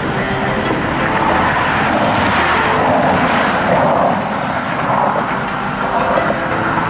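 Street traffic noise: a steady din of vehicles and running engines.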